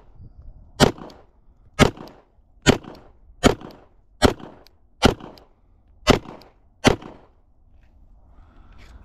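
Glock 17 Gen 4 9mm pistol firing eight shots at a steady pace, a little under a second apart, then stopping about 7 seconds in.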